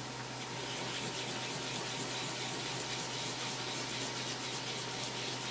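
Fresh wasabi root rubbed in small circles on a sharkskin grater, a steady wet rasping that picks up about half a second in.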